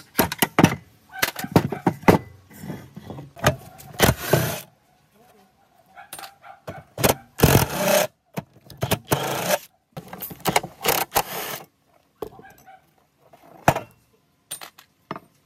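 Hand-tool and power-tool work on a rusty steel cutter base: clinks, knocks and scraping of a screwdriver prying at the metal, then a power driver with a socket spinning a bolt loose in several short runs.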